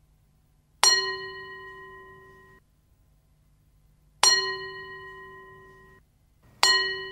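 A metal bell struck three times, about a second in, just past four seconds and near the end. Each strike rings on in a few clear tones and fades, and the first two rings cut off abruptly. A faint low steady hum lies underneath.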